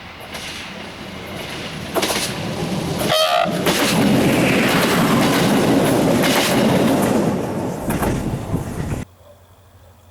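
A train passing close by, its wheels clacking over the rail joints amid a heavy rolling rumble. The sound swells over the first couple of seconds, carries repeated sharp knocks, and cuts off suddenly about nine seconds in.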